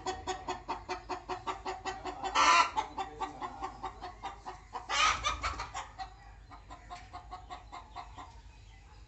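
Chicken clucking in a rapid, even run of short calls, with two much louder squawks about a quarter and halfway through, then fainter clucks.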